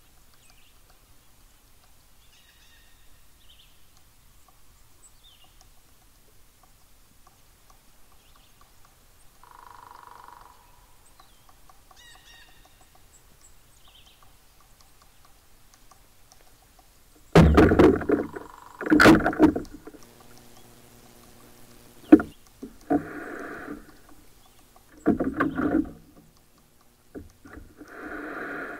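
Gear being handled in a canoe at the shore: a few loud knocks and scrapes against the hull, then shorter rustling bursts from packs and straps being shifted. Before that there are only faint, scattered bird chirps over quiet surroundings.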